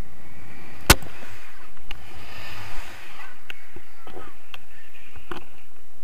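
Wind buffeting the camera microphone of a paraglider in flight, a steady low rumble with gusty dropouts. A sharp click about a second in and a few fainter clicks follow.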